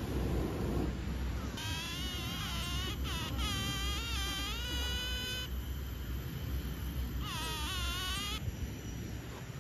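A cat meowing: long, drawn-out, wavering meows, then a shorter one near the end, over a steady low rumble.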